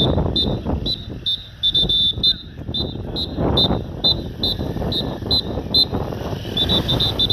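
Motorcycle engine running at low speed as the bike weaves slowly through a cone slalom, swelling and easing with the throttle. A short high beep repeats about twice a second over it.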